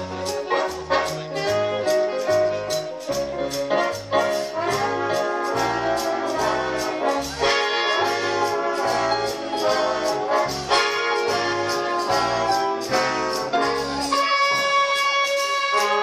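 1940s-style swing jazz with trumpets, trombones and saxophone over a walking bass line and a steady drum beat. About two seconds before the end the band moves to long held notes.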